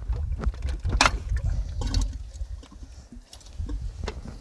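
Metal clicks and clinks of a hand tool and parts being worked at the hydraulic strainer canister under a compact tractor. There are a few sharp clicks, the loudest about a second in, over a low rumble.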